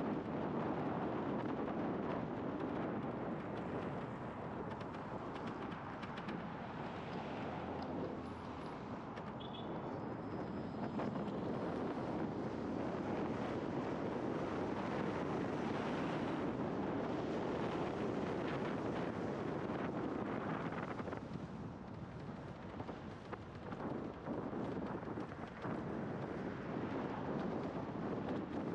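Wind rushing over the microphone and road noise from a scooter riding at about 30 mph, a steady noise with no clear engine note, dipping slightly for a few seconds near the end.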